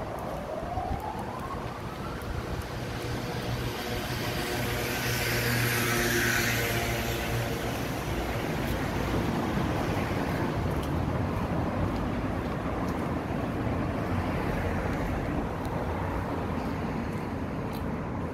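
Street traffic. A siren sweeps down and back up right at the start, then a motor vehicle passes close, loudest about six seconds in, and traffic noise carries on.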